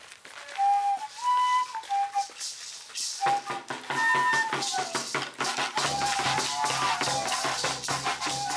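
Chirimía music: a flute plays a melody alone, and about three seconds in a drum and other percussion join it with a steady, even beat.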